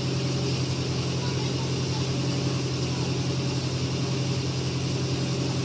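Heavy-equipment engine running steadily, a constant low drone with no change in pitch.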